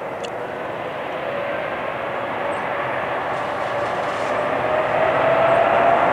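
Boeing 787-9 jet engines at takeoff power on the takeoff roll: a steady rushing noise with a tone that rises slowly in pitch, growing louder toward the end.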